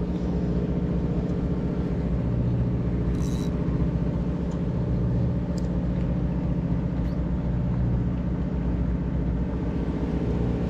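Fishing boat's engine running steadily, a low, even drone.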